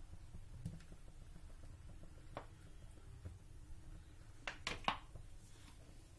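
Quiet room tone with a low hum, broken by a light click about two seconds in and a quick cluster of three clicks just before five seconds.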